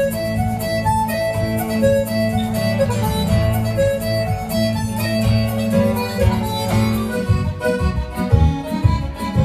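Recorded Irish dance tune with a reedy melody instrument and a steady dance beat, played for solo Irish step dancing; the accompaniment changes about seven seconds in.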